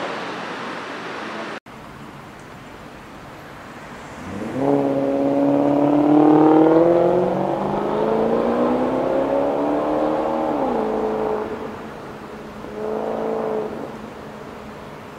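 Maserati GranTurismo's V8 exhaust under hard acceleration, the note rising steadily in pitch for about six seconds before dropping away, then a second short burst of revs near the end. It opens with a steady rushing noise that cuts off abruptly.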